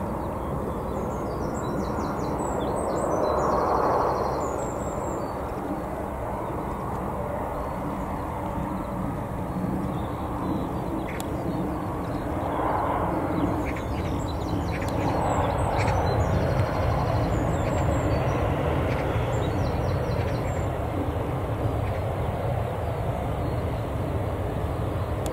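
Jet airliner engines rumbling, a steady low noise that swells in the second half, with small birds chirping in short high phrases now and then above it.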